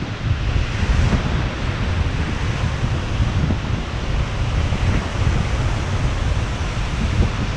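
Surf breaking and washing over rocks in a steady rush, with wind buffeting the microphone.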